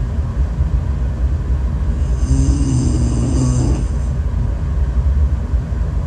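A sleeping woman snoring: one long, pitched snore with a hissy breath from about two seconds in until nearly four seconds, over a steady low rumble.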